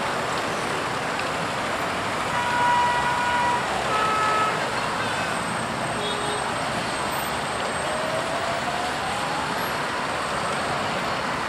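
Steady road traffic noise from queued vehicles, with a car horn sounding twice, a long toot a couple of seconds in and a shorter one about four seconds in, and a faint rising whine near the end.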